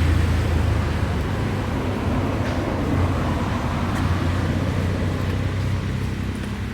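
A steady low engine rumble under a haze of outdoor noise, easing off slightly toward the end.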